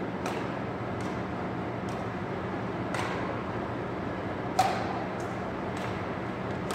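Badminton rally: sharp cracks of racket strings hitting a shuttlecock about once a second as the players trade shots, each with a short echo, the loudest about four and a half seconds in. A steady low hum runs underneath.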